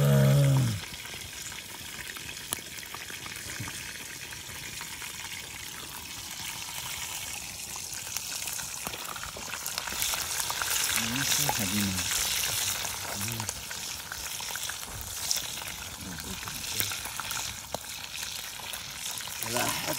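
Hot oil sizzling and spitting in a frying pan set over an open wood fire: a steady hiss with many small crackles, growing louder and busier about halfway through.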